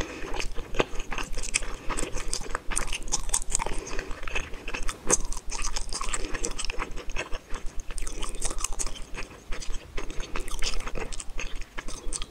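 A person chewing and biting spicy tteokbokki rice cakes and fish balls close to the microphone, with many quick, irregular mouth clicks and smacks.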